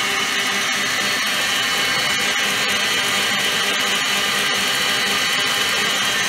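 KitchenAid stand mixer running steadily, its motor whining as the wire whisk whips body butter in the steel bowl.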